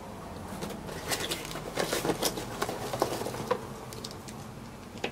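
Plastic packaging crinkling and rustling in the hands as a small accessory is unwrapped. A run of short crackles starts about a second in and lasts a couple of seconds.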